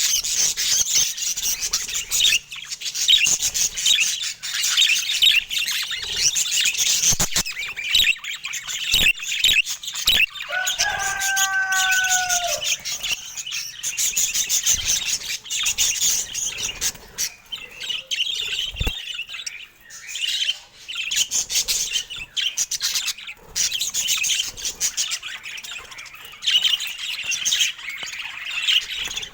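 Budgerigars chattering and warbling continuously in high, rapid chirps, with a few sharp clicks. About ten seconds in, one longer, lower call is held for about two seconds, falling slightly.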